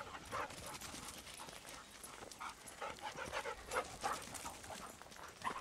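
A dog panting right at the microphone in quick, irregular breaths, with scuffing and brushing clicks as it noses against the camera.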